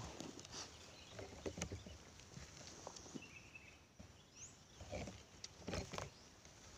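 Faint rustles and scattered light knocks from the air rifle being handled while the shooter aims, with a brief high chirp about three seconds in.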